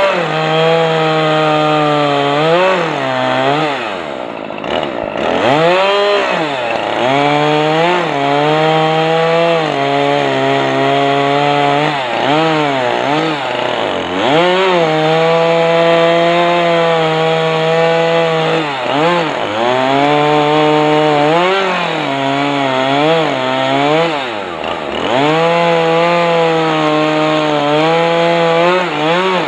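Poulan Pro two-stroke chainsaw in a homemade chainsaw mill, running at high revs while ripping lengthwise through a big log. Its pitch sags and recovers every few seconds as the chain bites, and twice drops nearly to idle, about five seconds in and near the end, before revving back up.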